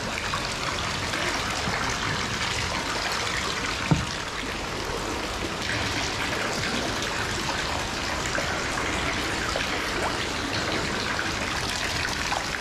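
Steady rush of water pouring from an inlet pipe into a large round fish-rearing tank, with a single sharp knock about four seconds in.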